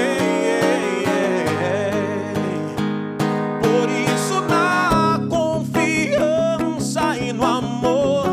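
Worship song with strummed acoustic guitar and a singing voice that comes in more strongly about halfway through.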